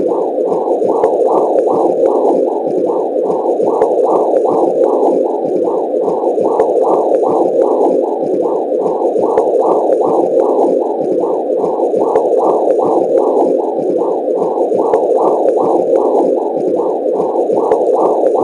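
Womb sound effect: a steady low whooshing noise that swells in an even pulse about twice a second, like blood flow pulsing with a heartbeat.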